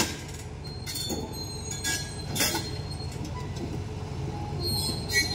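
Excavator's diesel engine running steadily, with a few metallic knocks and short high squeals of steel rubbing on steel as the load is lifted.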